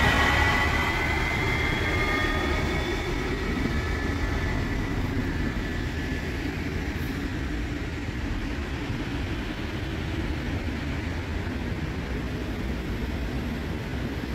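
KVB Stadtbahn light-rail train running past close by: a rumble of wheels and running gear with a whine of several tones that fades over the first few seconds, leaving a steady low rumble that slowly dies down.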